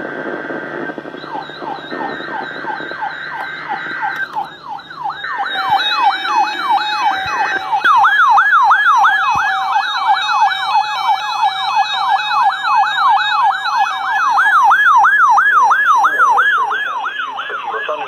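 Weather alert radios, among them a Reecom, sounding their electronic siren alarms on receiving a weather alert: rapid rising-and-falling wails, about three a second. More alarms with different sweeps join in about four and eight seconds in, over a steady beep tone that stops partway through.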